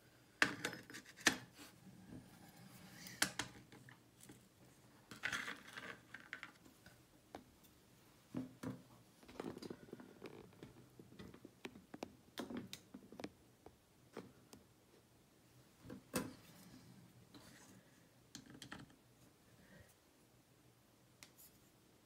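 Faint, irregular clicks, clinks and scrapes of small metal lock parts being handled: the pieces of a disassembled Zeiss Ikon TK5 cylinder picked up and set down on a parts tray. A few sharper clicks come about half a second and a second in, and again about 16 seconds in.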